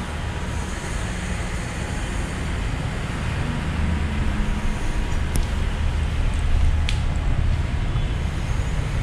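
Steady low rumble with hiss, growing slightly louder toward the middle, with two faint clicks a little past the middle.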